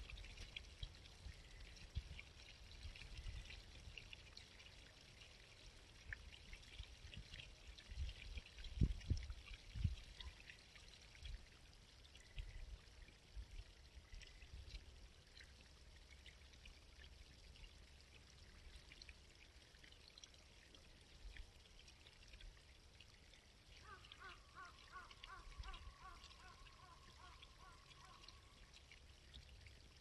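Faint, steady babbling of a small country brook. A bird trills a quick run of repeated notes for about four seconds near the end, and a few low rumbles come about eight to ten seconds in.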